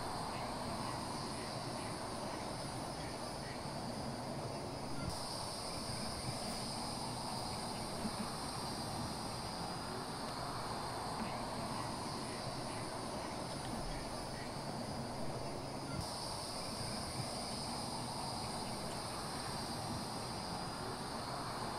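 Steady high-pitched chorus of night insects over low outdoor background noise. The chorus grows louder about five seconds in and drops back about sixteen seconds in.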